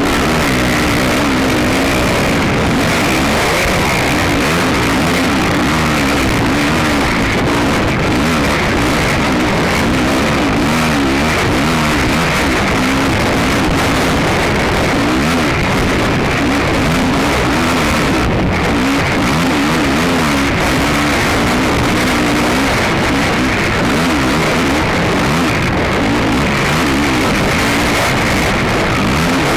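Quad ATV race engine heard on board at full race pace, its pitch rising and falling quickly and continually as the throttle is worked, over heavy wind and terrain noise.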